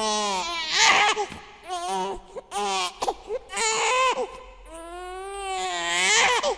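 Baby crying in a run of short wails, ending in one long wail that rises and then falls over the last two seconds.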